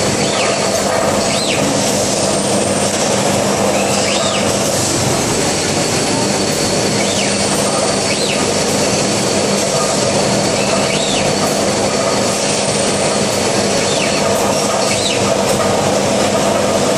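Steady noise of a running automated machining cell, an MT Zanetti transfer machine with a Fanuc six-axis loading robot, under a constant low hum. Short whines that rise and fall recur every second or two.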